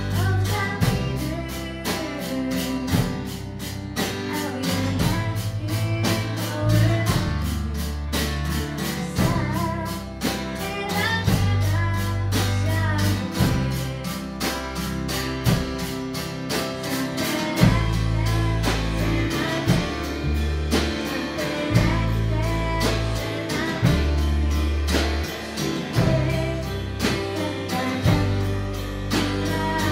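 A small band playing a song: a young woman singing into a microphone over acoustic guitar and a drum kit keeping a steady beat.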